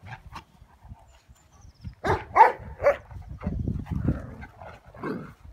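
Dogs at rough play: three sharp barks in quick succession about two seconds in, followed by lower, rougher dog noises.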